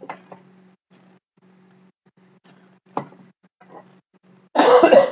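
A few sharp clicks, then a loud rustling scrape lasting under a second near the end, over a faint steady electrical hum.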